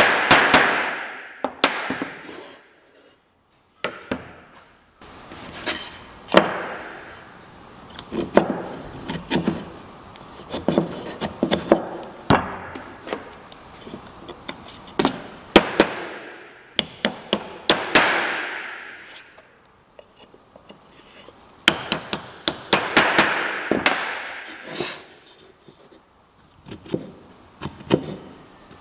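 Hand work on white oak stool parts: clusters of sharp taps and knocks on wood, alternating with longer rasping strokes, with a short pause about three seconds in.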